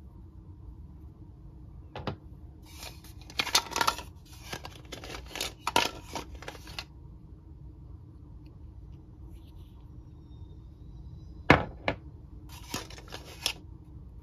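Hard plastic toys being handled: a hollow Mr. Potato Head body and small plastic toy pieces clicking and rattling against each other in short bursts, with one sharp click later on.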